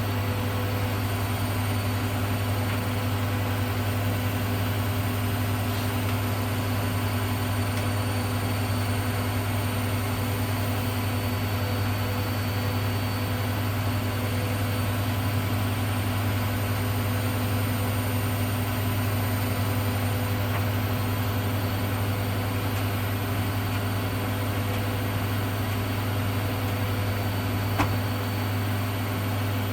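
Hoover Dynamic Next washing machine running through its cotton 40 cycle, a steady low hum with a noise haze that does not change, and one small click near the end.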